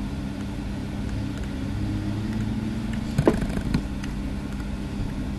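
Steady low mechanical hum with a low rumble beneath it, with two short clicks a little over three seconds in.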